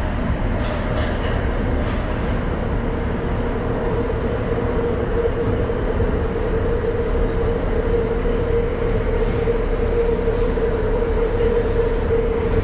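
Tokyo Metro 02 series subway car running, heard inside the car: a steady rumble of wheels on rail with a steady tone that grows stronger about halfway through.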